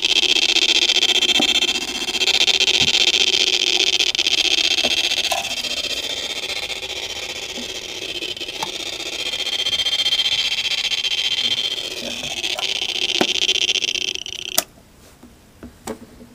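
Circuit-bent ray-gun toy sound circuit playing through a small speaker: a high electronic drone with a hissy edge that swells and fades in loudness. It cuts off abruptly with a click about fourteen and a half seconds in, followed by a few faint handling clicks.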